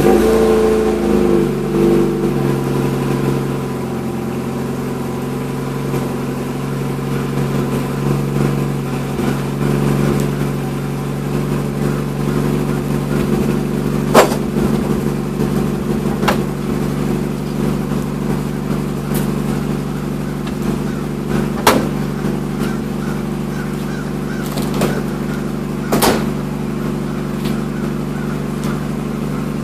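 1.6-litre Mazda Miata inline-four idling just after a cold start, through a Flowmaster DBX muffler. The idle speed settles downward over the first couple of seconds and then holds steady. A few sharp knocks stand out over the idle, around the middle and near the end.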